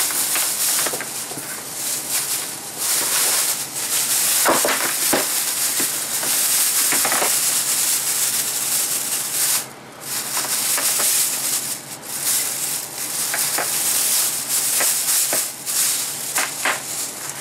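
Plastic bags and packaging crinkling and rustling as they are handled, with a few sharp clicks and a brief pause about ten seconds in.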